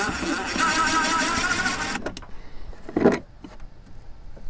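Cordless drill running with a steady whine, backing out the battery disconnect switch's mounting bolts, then stopping about two seconds in. A sharp knock follows about a second later, then a few faint clicks.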